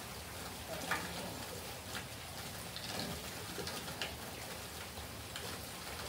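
Light rain falling on a wet patio and yard after a heavy downpour: a steady hiss with scattered drips and taps.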